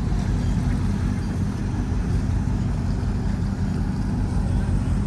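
Superyacht's engines running steadily during docking, a low, even drone.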